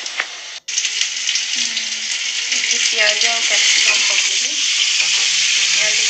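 Vegetables frying in hot oil in a pan on a gas stove, sizzling steadily. The sound cuts out for an instant just over half a second in and comes back louder.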